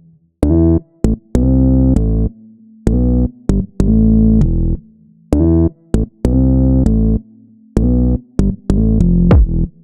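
Electronic background music: punchy synthesizer notes in short rhythmic phrases with sharp percussive clicks between them.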